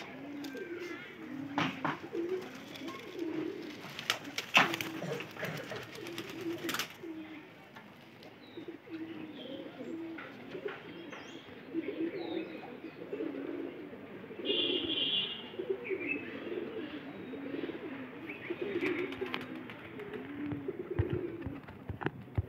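Kamagar highflyer pigeons cooing, low coos repeating again and again. A few sharp clicks or knocks come in the first seven seconds, the loudest about four and a half seconds in.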